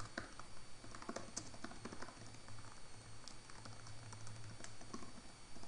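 Computer keyboard typing: a quick, irregular run of faint keystrokes.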